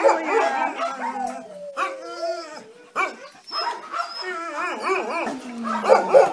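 Several kennelled dogs barking and howling at once, their calls overlapping without a break.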